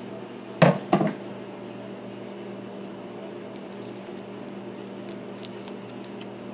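Raw shrimp being peeled by hand, the shell crackling in faint, quick ticks over a steady low hum. Two short loud knocks about half a second apart come near the start.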